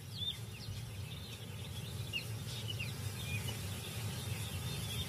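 A few short bird chirps over a low, steady rumble of outdoor background ambience.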